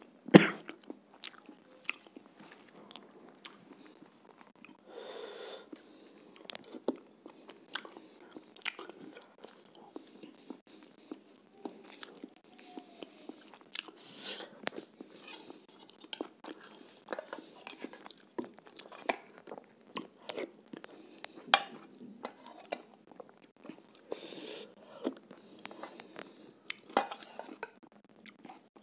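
Close-up eating sounds of a person chewing roti and chicken curry, with many small wet clicks and crunches. It opens with a cough, and near the end a steel spoon clinks and scrapes in a steel bowl.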